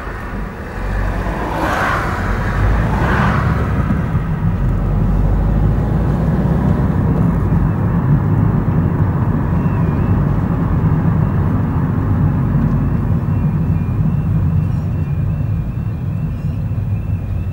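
Car driving along a road: steady low engine and tyre rumble, with oncoming cars swishing past in the first few seconds.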